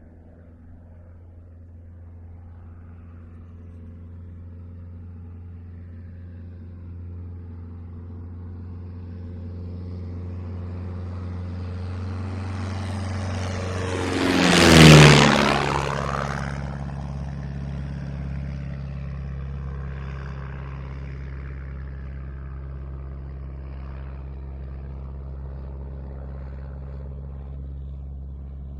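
de Havilland Tiger Moth biplane with its Gipsy Major piston engine and propeller making a fast fly-by. The engine hum grows steadily louder for about fifteen seconds, peaks as the plane passes with a sudden drop in pitch, then fades away slowly.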